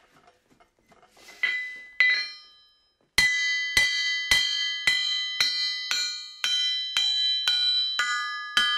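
Blacksmith's anvil struck with a ball-peen hammer to play notes on it. Two single ringing blows come first, then an even run of about two blows a second, each ringing on in clear tones. Near the end the note changes to a lower one.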